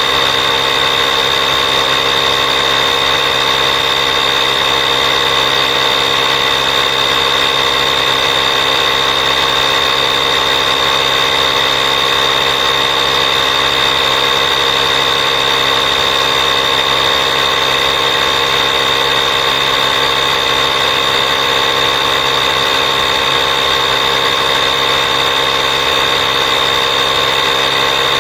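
Steady drone of a small motor running without change, with a high whine held at one pitch.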